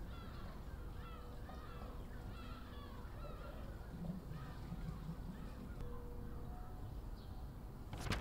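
Outdoor ambience with birds calling in many short chirps over a steady low background hum, and a brief sharp noise near the end.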